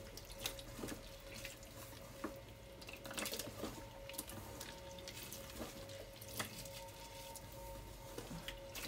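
Faint wet squelching and sloshing as a gloved hand kneads and squeezes grated cassava mixed with sugar and water in a stainless steel bowl, working the sugar until it dissolves, with many small irregular squishes.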